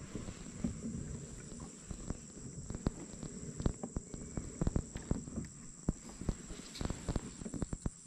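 Irregular light clicks and knocks of fishing rod and kayak gear being handled close by, over a steady high insect drone.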